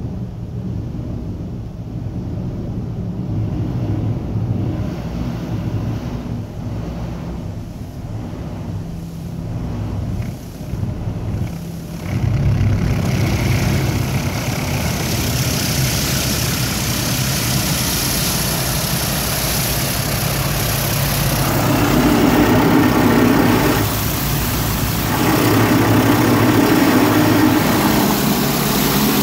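Touchless automatic car wash heard from inside the car. A low hum gives way, about twelve seconds in, to high-pressure water jets hitting the windshield and roof as a loud, steady rush of spray.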